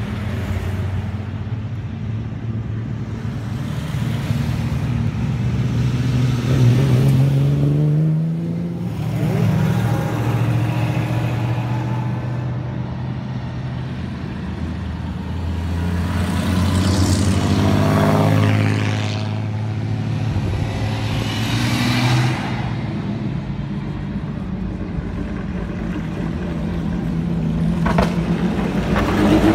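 Vintage and classic cars driving past one after another, their engines swelling as each one approaches and fading as it goes. Engine pitch rises as the cars pull away and falls as others go by. A sharp click comes near the end.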